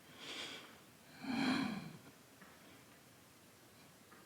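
A person breathing out audibly twice while exercising: a short breath just after the start and a longer, louder one around a second and a half in.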